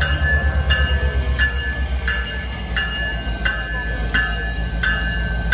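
Level-crossing warning bell ringing steadily, about one and a half strikes a second, over the deep rumble of a CP diesel locomotive moving slowly through the crossing.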